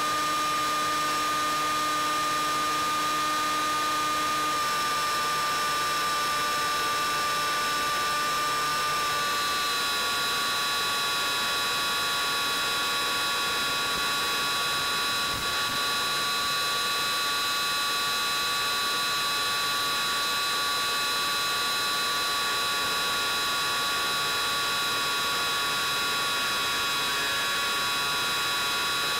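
Bixler 3 RC plane's electric pusher motor and propeller whining steadily in flight over a constant hiss, its pitch dropping a little in small steps twice as the throttle eases.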